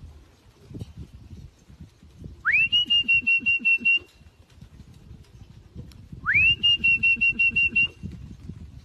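Pea whistle blown twice, each blast rising quickly in pitch and then held with a fast trill for about a second and a half, about three and a half seconds apart.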